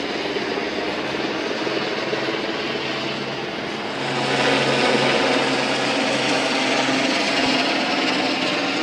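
Helicopter flying overhead: steady rotor and engine noise that grows louder about four seconds in.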